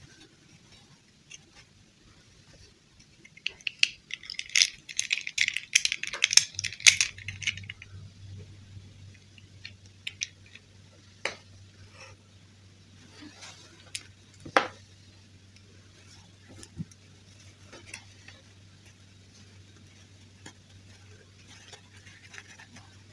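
Crinkly rustling of a doll's tulle dress being handled for a few seconds, then scattered light clicks and taps of plastic fashion dolls being moved and knocking together. A faint steady low hum comes in partway through.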